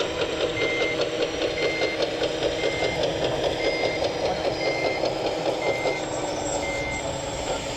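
Reversing beeper of an RC construction machine's sound module, sounding one single-pitched beep about once a second and stopping near the end. Beneath it runs a steady mechanical whir of the RC machinery.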